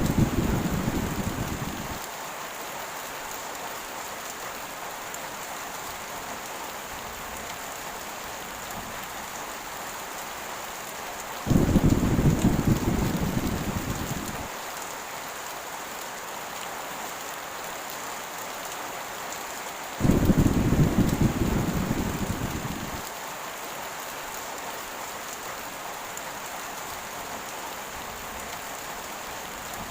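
Heavy rain falling steadily, with three rolls of thunder: one dying away at the start, one about 12 seconds in and another about 20 seconds in. Each starts suddenly as a deep rumble and fades over about three seconds.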